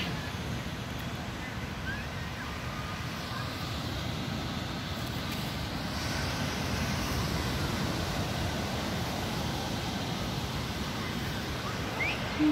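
Wind rumbling on the phone's microphone over the steady wash of ocean surf, growing a little louder and hissier about halfway through.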